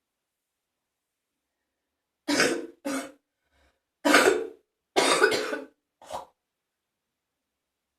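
A person coughing up phlegm: about five phlegmy coughs, each short and separate, starting a couple of seconds in.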